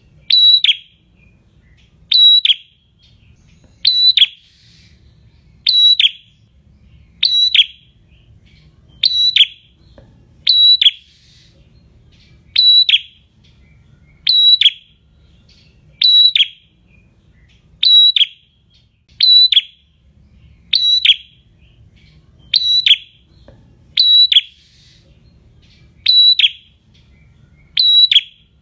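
Caged prenjak calling persistently: one short, sharp, high note with a falling hook, repeated steadily about every second and three-quarters, some seventeen times.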